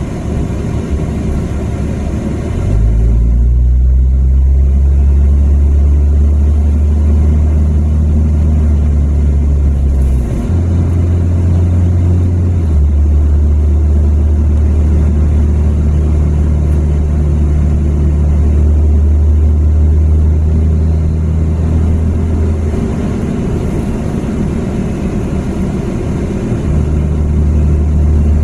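Steady low engine and road drone heard from inside a moving car's cabin. It gets louder about three seconds in, and its pitch shifts up and down a few times.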